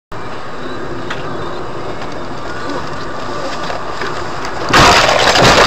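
Steady road and engine noise inside a moving car. About three-quarters of the way in, a sudden much louder rushing noise cuts in and stays loud.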